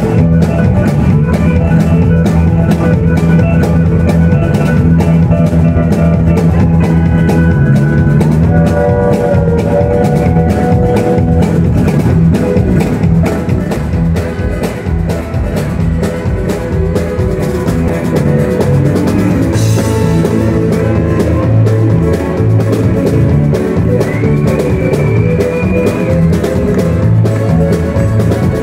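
Live country band playing an instrumental passage: pedal steel guitar and fiddle over electric bass and a steady drum beat, with a sliding note near the end.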